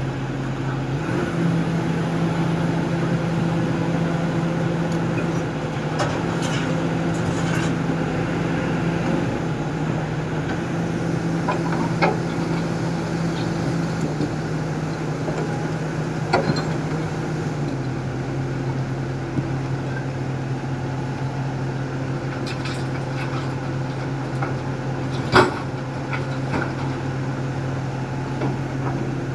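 Heavy diesel engine of earthmoving machinery running steadily, its pitch stepping up about a second in and dropping back a little past halfway, with a few sharp knocks.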